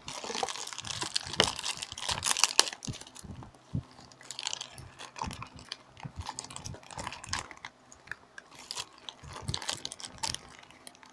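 Thin clear plastic parts bag crinkling and crackling as hands work it open. The crackles are dense for the first few seconds, then come scattered and irregular.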